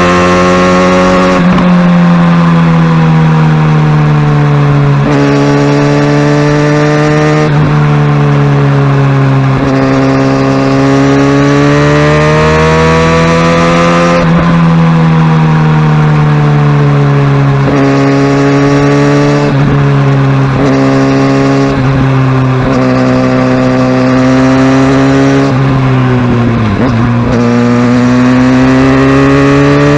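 Kawasaki Ninja ZX-6R's inline-four engine running under way at moderate revs. Its pitch climbs and eases off with the throttle and drops suddenly several times.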